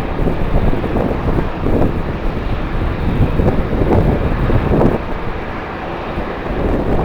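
Jet airliner engines at an airport running under strong wind that buffets the microphone in uneven gusts.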